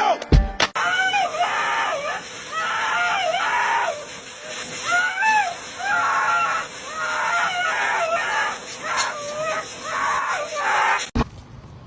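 An animal calling over and over: about ten short calls, each bending up and down in pitch, that stop abruptly near the end.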